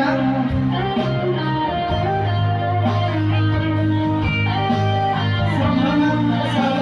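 Band playing an instrumental passage, an electric guitar carrying the melody over a steady bass line, with no singing.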